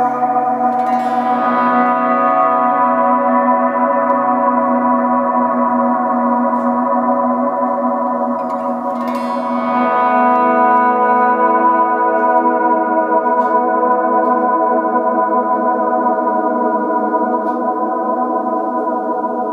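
Gibson ES-335 electric guitar through a Swart AST amp playing chords as volume swells into a Neunaber Stereo Wet reverb set to deep modulation, a long sustained wash of modulated reverb. A new chord swells in about a second in and another around nine seconds in.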